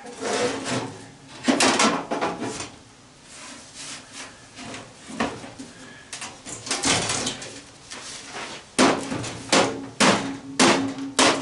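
Metal clanks and knocks from work on an old fan's sheet-metal housing, as the side panel is pried and struck loose. The knocks are scattered at first, then come as a quicker run of about six sharp strikes near the end, some leaving a brief metallic ring.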